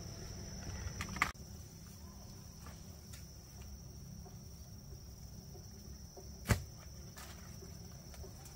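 Insects chirring in one steady high tone, with a sharp knock about a second in and a louder one about six and a half seconds in.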